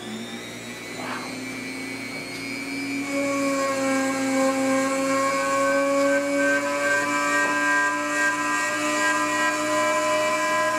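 Electric rotary tool in a rose engine's cutting frame running at high speed and cutting a fluted pattern into wood, a steady whine. From about three seconds in, a louder tone joins it and rises slowly in pitch.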